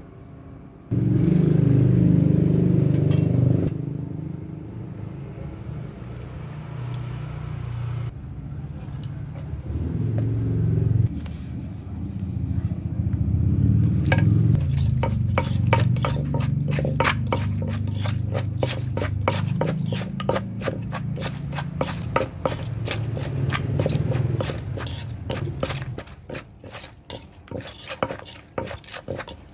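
Pestle pounding green papaya salad in a mortar: rapid, even knocks at about three a second, starting about halfway through, over a low steady rumble that is loudest in the first few seconds.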